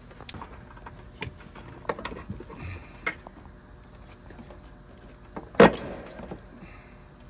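Scattered metallic clicks and clinks of hand tools and parts being handled under the hood, with one louder clank about five and a half seconds in.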